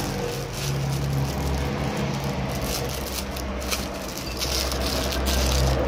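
Clear plastic wrapper crinkling as a small toy is worked out of its bag by hand, over a steady low rumble like a motor running, which dips briefly about four seconds in.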